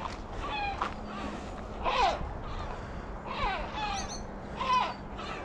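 Gulls calling in alarm overhead, about five harsh calls that slide down in pitch, roughly a second apart. They are agitated by a person near them.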